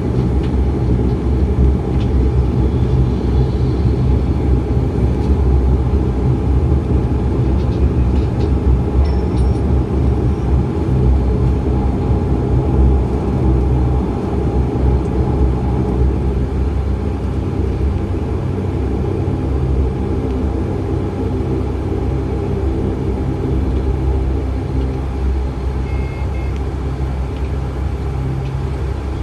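Cabin noise of a Dash 8 Q400 turboprop airliner's twin Pratt & Whitney PW150A engines and propellers during taxi onto the runway: a steady low drone with a few held low tones, easing off slightly near the end.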